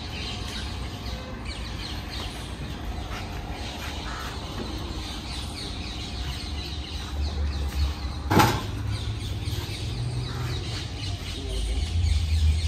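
Outdoor ambience with birds chirping and calling, as a handcart on big spoked wheels is pushed along the road. There are low rumbles now and then and one sharp knock a little past the middle.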